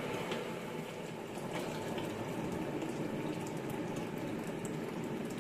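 Water boiling for pickle brine: a steady bubbling hiss with faint scattered ticks.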